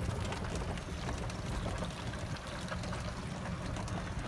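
Steady low rumble of a slowly moving vehicle, with tyre and body noise and faint ticks.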